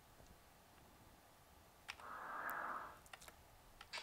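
A few sharp clicks, and about two seconds in a soft hiss lasting about a second: a slideshow sound effect.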